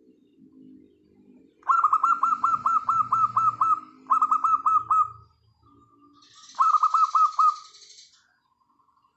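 Zebra doves (perkutut) calling: three loud runs of quick, downward-sweeping notes, about eight a second, the first lasting about two seconds. Softer, lower cooing sounds run beneath and between the runs.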